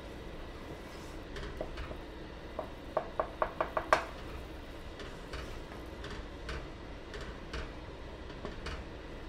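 A utensil clinking against a cooking pot. About three seconds in comes a quick run of about six ringing taps, the last the loudest, followed by scattered lighter clicks.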